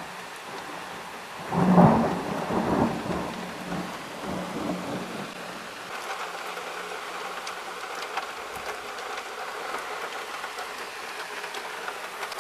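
A thunder rumble swells about a second and a half in and dies away over a couple of seconds, over steady rain. The rain goes on for the rest of the time, with scattered drops ticking.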